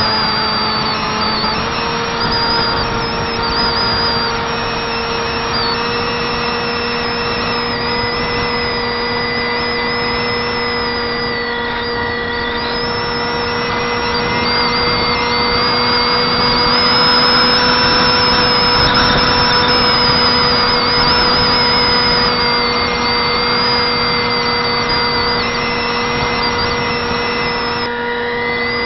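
Electric brushless outrunner motor (Turnigy 28-26 2200kv) spinning a 6x4 propeller on a Zeta Wing Wing Z-84 flying wing, heard from a camera on the airframe: a steady hum with a high whine over rushing air. The pitch steps up slightly about a second and a half in, and the air rush swells for a few seconds past the middle.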